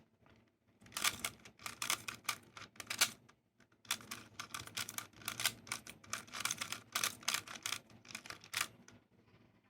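GAN 356i speedcube being turned rapidly by hand, its plastic layers clicking and clacking in quick runs of turns, with a brief pause partway through.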